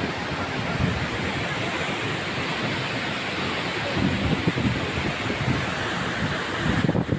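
A tall waterfall heard up close: a steady, loud rushing of falling water pounding onto rocks, with wind buffeting the phone's microphone.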